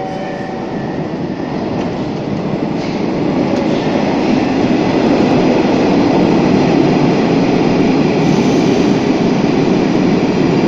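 Metro train moving off along the platform, its running noise building steadily over the first five seconds as it gathers speed and then holding steady.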